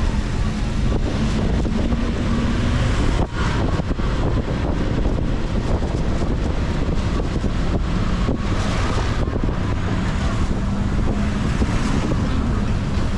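Wind buffeting the microphone over the steady hum of a running motor, as from riding in an open vehicle.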